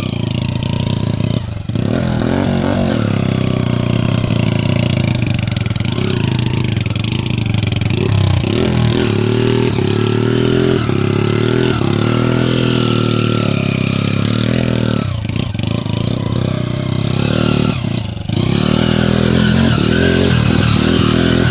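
Motorcycle engine revving hard while being ridden off-road, its pitch rising and falling again and again, with brief drops in engine note a couple of times.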